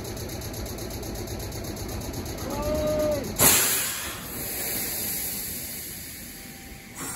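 Sharp burst of compressed air hissing out from the coupled Meitetsu 5000 series trainsets about three seconds in, fading away over about three and a half seconds: air venting as the two sets' couplers join during coupling.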